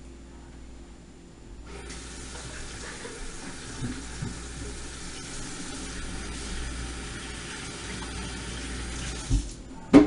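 Kitchen tap running into the sink, turned on about two seconds in and shut off abruptly after about eight seconds. Two sharp thuds follow near the end.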